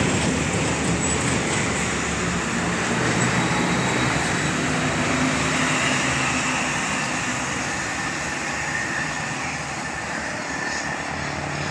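Steady road traffic noise from heavy vehicles, slowly fading.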